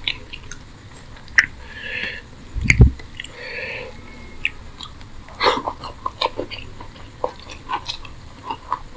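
Close-miked hand-eating sounds: wet mouth clicks and chewing of curry and rice, and fingers squishing rice and curry together on a steel plate, with one loud low thump about three seconds in.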